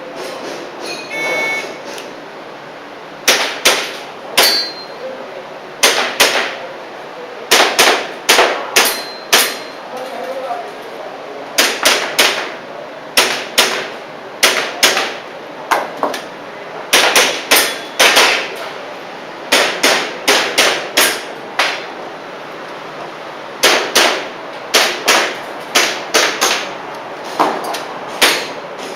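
Airsoft pistol firing a timed practical-shooting course: dozens of sharp cracks, mostly in quick pairs and short strings with brief gaps between them, some with a faint metallic ring from hits. A short electronic shot-timer beep sounds about a second in.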